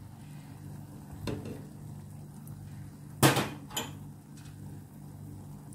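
Kitchen utensils clinking against the pan while egg yolk is poured into a frying pan: a light tap about a second in, then two sharp knocks a little after three seconds. A steady low hum runs underneath.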